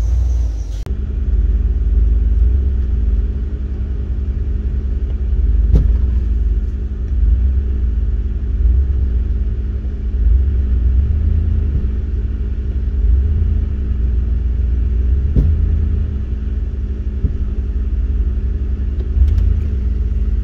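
Jeep's engine running steadily at low speed with a deep rumble, heard from inside its cabin while it pulls a brakeless car on tow. A couple of brief knocks sound over it.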